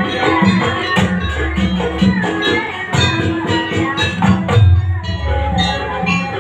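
Live Banyuwangi jaranan gamelan music: drums keep a fast beat over short, evenly repeated pitched metal notes, with a few deep low gong-like strokes.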